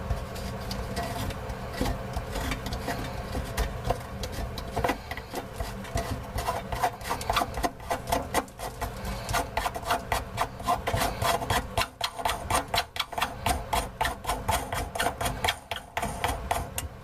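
Black plastic faucet mounting nut being unscrewed from the underside of a bathroom sink, its threads rasping and clicking in a fast, uneven run of ticks that grows denser about five seconds in.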